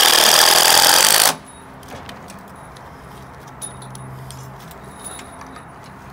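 Cordless driver running a 2.5-inch structural screw through a steel joist hanger into the wood ledger, then stopping abruptly about a second in; a few faint clicks follow.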